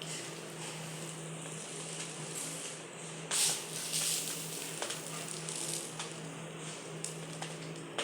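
Raw, uncooked rice grains crunching as they are chewed, with crackly small clicks and a louder crunch about three and a half seconds in. A steady low electrical hum runs underneath.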